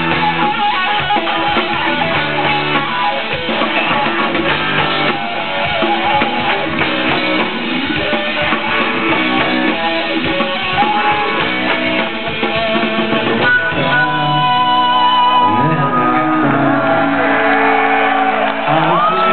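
Live rock band playing an instrumental passage, electric guitars over a drum kit, heard from the audience through the festival PA. About 13 seconds in the drumming thins out and long, bending guitar notes carry the music.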